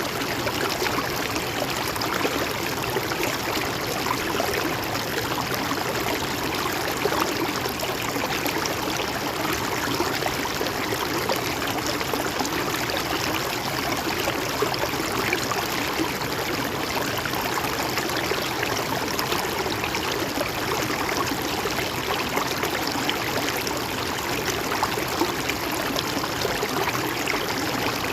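A river flowing steadily, an even, unbroken rush of water.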